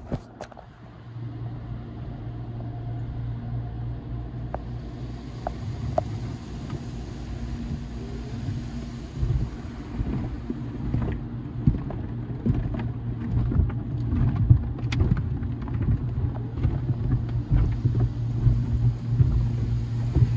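AVW tunnel car wash heard from inside the car: a steady low hum, with a hiss of water and foam spraying onto the car from about four seconds in. In the second half, irregular knocks and thumps on the body come thicker and louder toward the end.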